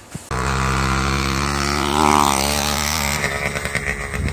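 An engine running at a steady pitch, starting suddenly just after the start; about three seconds in the sound thins out and changes.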